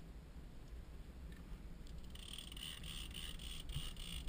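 Low, steady rumble of a boat at sea, with a fast, high-pitched ticking whine joining about two seconds in.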